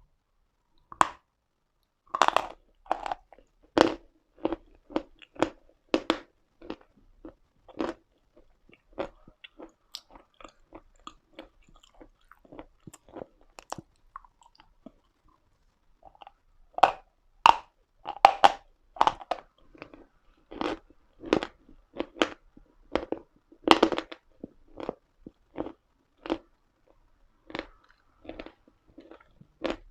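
Pieces of Uslada chalk being bitten and chewed: a run of sharp, dry crunches. They thin out to fainter chewing from about ten seconds in, then turn dense and loud again from about sixteen seconds.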